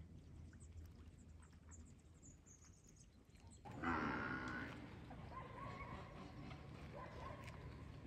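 Water buffaloes grazing, faintly. A little past halfway a louder, noisy sound starts suddenly and fades over about a second.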